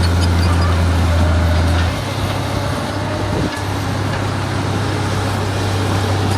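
Diesel engine of a heavy earthmoving machine running with a steady low drone, dropping a little in level about two seconds in.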